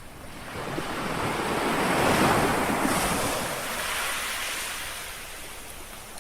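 A single small sea wave washing onto the shore: a rush of water that swells for about two seconds and then slowly fades.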